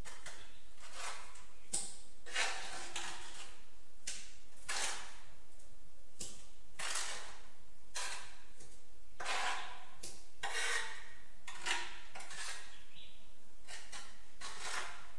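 A steel trowel scraping tile mortar, in about a dozen strokes roughly a second apart.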